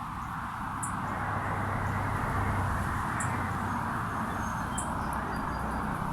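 A few short, faint, high chirps from small birds over a steady outdoor hiss and low rumble; the hiss is the loudest sound and swells slightly about a second in.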